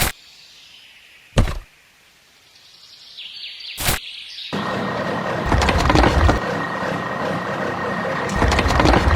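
Three sharp knocks, a second or more apart. Then, about halfway through, a motor starts up and runs steadily with a high whine over a rough noise, louder in two swells near the end.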